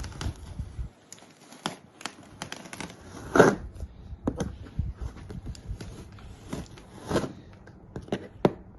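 Cardboard TV box being handled: scattered knocks, scrapes and clicks, with tearing sounds about three and a half seconds in and again about seven seconds in.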